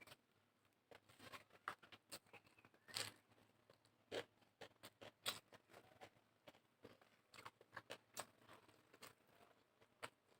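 Close-miked eating sounds: chewing and wet mouth smacks, a quick irregular run of short clicks, with a louder one about three seconds in and another a little after five seconds.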